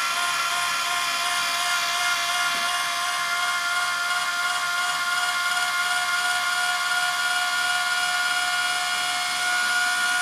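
24 V DC gearmotor of a homemade mill power feed running steadily at full speed, a high whine from the motor and its gearbox as it turns the table's lead screw.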